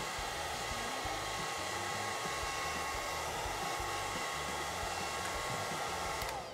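Handheld hair dryer blowing steadily, with a constant motor whine, drying wet fabric paint. It is switched off near the end and its whine falls away as it winds down.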